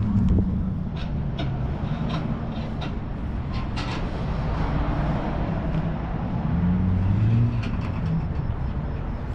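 Car engine idling with a steady low rumble that swells and eases a little, with a few light clicks scattered over it.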